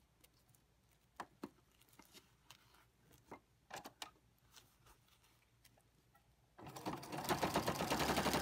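Sewing machine stitching at a fast, even pace through vinyl, paper and fabric binding, starting about six and a half seconds in after a quiet stretch with a few faint clicks.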